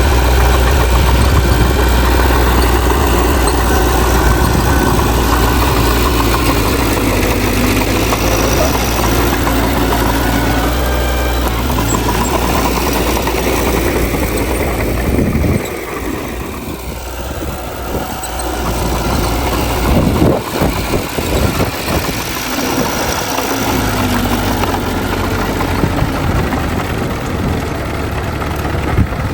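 Heavy diesel earthmoving machinery running steadily. About halfway through, the steady low engine tone drops away and a string of uneven low surges follows for several seconds before the steady running returns.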